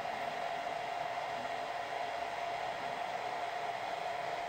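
Steady background hiss with a faint steady hum tone running under it, like a fan or air conditioner in the room; no distinct clicks or other events.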